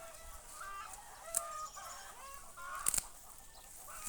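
Chickens clucking, short repeated calls, with a sharp click about a second and a half in and another near the end.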